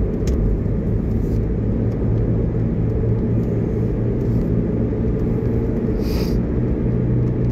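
Car cabin noise while driving: a steady low rumble of engine and tyres on the road, with a steady hum underneath. A brief hiss comes about six seconds in.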